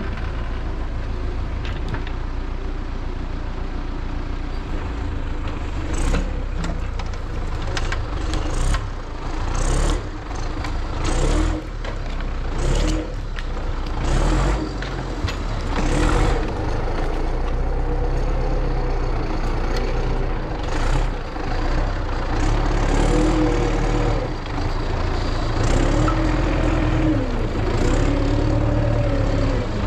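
MTZ-82 tractor's diesel engine running steadily, with a run of short sharp noises over its first half. Later the engine note rises and falls as it takes varying load.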